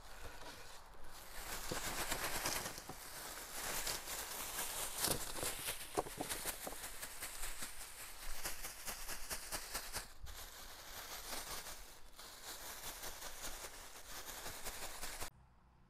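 A thin plastic bag crinkling and rustling as apple peels are shaken out of it and the empty bag is crumpled up, with footsteps in dry fallen leaves. It cuts off suddenly near the end.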